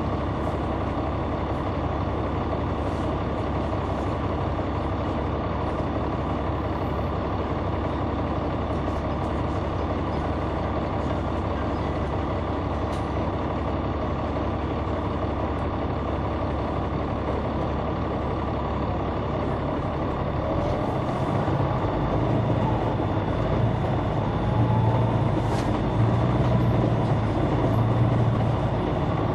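Caterpillar C9 ACERT inline-six diesel of a 2004 Neoplan AN459 articulated transit bus, heard from inside the bus. It runs steadily, then about two-thirds of the way in its low rumble grows louder and heavier as it works harder.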